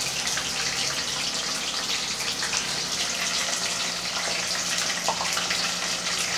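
Hot canola oil sizzling steadily with a dense fine crackle, as thyme, onion and garlic fry in it to flavour the oil.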